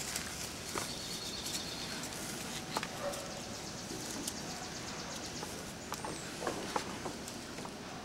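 Quiet outdoor ambience with scattered light ticks and taps and a faint high bird chirp about six seconds in.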